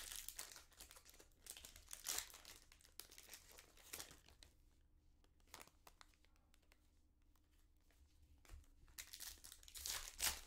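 Foil wrapper of a trading-card pack crinkling and tearing as it is pulled open by hand, in bursts at the start and again near the end, with faint clicks of cards being handled in the quieter middle.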